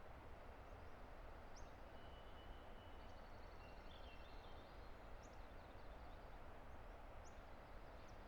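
Faint steady rush of a distant river, with a few short, high bird chirps and a brief thin trill from songbirds over it.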